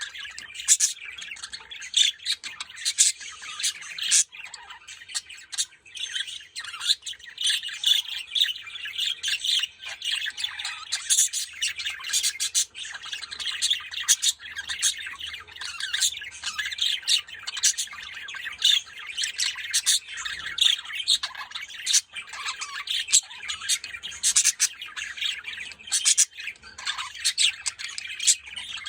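Budgerigars chattering: a continuous run of high chirps and warbles with sharp short calls throughout.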